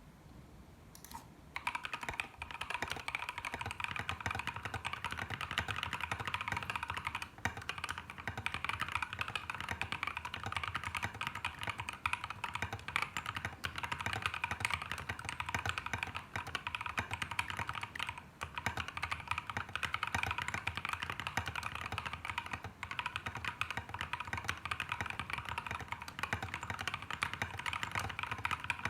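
Continuous fast typing on a custom GK61 XS mechanical keyboard in an aluminium case, with tall SA keycaps and lubed linear 'Creamsicle' switches (NovelKeys Cream and C3 Tangerine parts, Krytox 205g0). The rapid key clacks start about a second and a half in.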